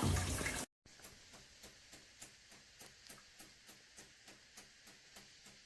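Shower water spraying, which cuts off abruptly under a second in. Faint, even ticking follows, about three ticks a second.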